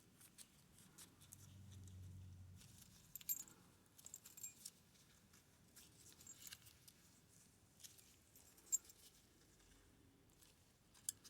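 Near silence broken by a few faint, light metallic clicks and scrapes: a shim and small tools being worked against the core of a Yale pin-tumbler lock.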